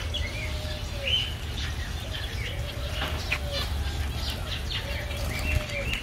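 Zebra finches chirping and fluttering their wings as a flock perches and feeds on a hand. A lower, drawn-out call repeats about once a second behind them, over a steady low rumble.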